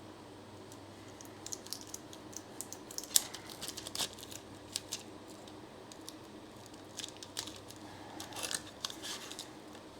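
Scattered light clicks, taps and rustles of tools and parts being handled on a workbench, over a faint steady hum.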